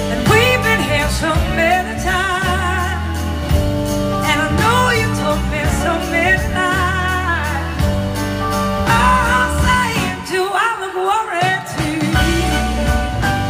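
Live blues-rock band playing through a PA, heard from the audience: a lead vocal with strong vibrato over electric guitars, keyboards and drums. The bass and drums drop out for about a second and a half near the end, then the full band comes back in.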